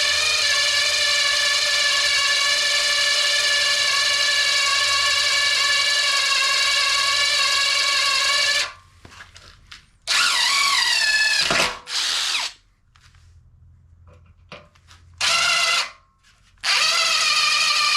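Electric drill running with a 1/8-inch bit, boring a pilot hole: a steady motor whine that cuts off about nine seconds in. A few short bursts on the trigger follow, one winding down in pitch, and the drill runs steadily again near the end.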